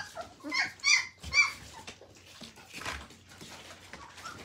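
Very young puppies whimpering: several short, high-pitched squeaks in the first second and a half, then fainter.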